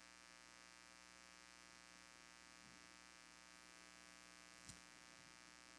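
Near silence: a faint steady electrical hum, with one faint click near the end.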